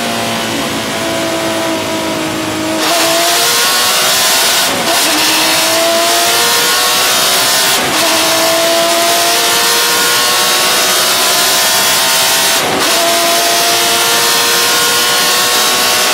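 Porsche 996 GT3 Cup's flat-six engine racing. It is lighter for the first few seconds, then gets louder under full throttle about three seconds in, with the pitch climbing through the gears and dropping at upshifts about five, eight and thirteen seconds in.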